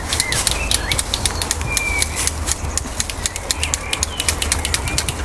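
Walnuts in the shell knocked together by hand, a rapid, irregular clacking several times a second: the rattle used to call squirrels.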